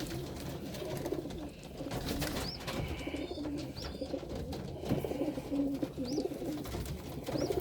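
Domestic pigeons cooing in a loft, low wavering calls repeating throughout, with a few short high peeps scattered through.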